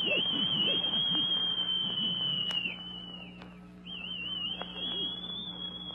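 A person whistling: a long, high, shrill whistle held near one pitch with small wavering dips, breaking off about two and a half seconds in, then a second long whistle starting about a second later.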